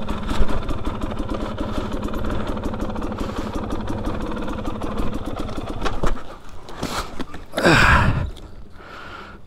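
2021 Husqvarna TE250i's two-stroke single-cylinder engine running at steady low revs, its note dropping away about six seconds in. Near the end comes a short loud burst that falls in pitch.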